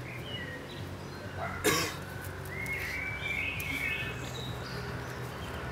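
Birds chirping over a steady low background hum, with one sudden sharp thump about one and a half seconds in.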